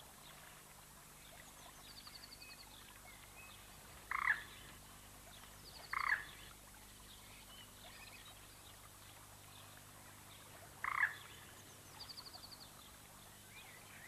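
Quiet pond-side wildlife ambience: an animal gives three short calls, two of them close together and a third about five seconds later, over faint, rapid high bird trills.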